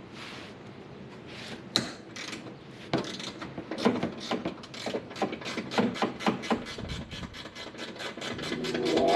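Ratchet wrench clicking through a run of quick back-strokes, speeding up to about four clicks a second, as the bolts holding a front bumper to its absorber are backed off. Music fades in near the end.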